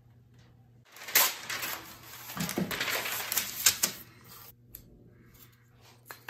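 A sheet of brown kraft paper crinkling and rustling as it is handled and spread flat on a wooden workbench, with sharp crackles. A few light clicks near the end.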